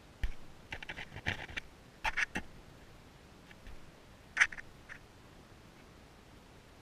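Shetland Sheepdog puppy nosing at the camera up close, making short scratchy taps and rustles against it: a quick run of them in the first two and a half seconds, then a sharper one a little past the middle.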